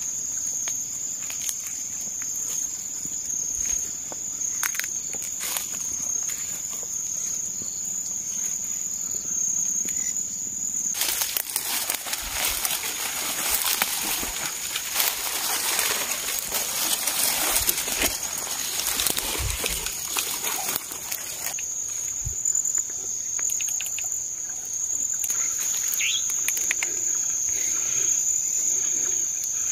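Night insects trilling in one steady high-pitched tone. About ten seconds in, a stretch of rustling lasting roughly ten seconds drowns the trill, then the trill comes back.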